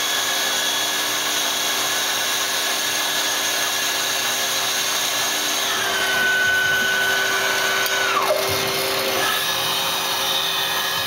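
Star SB-16C CNC Swiss-type lathe running through its cycle: a steady machine whir with several steady tones. About six seconds in a high whine comes in, holds one pitch, then drops away sharply just past eight seconds, and another whine starts a second later.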